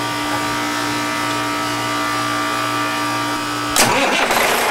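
A steady machinery hum with several held tones. About four seconds in it gives way abruptly to the louder, rougher sound of the Caterpillar C18 marine diesel running, started to check the raw-water side for leaks after the flush.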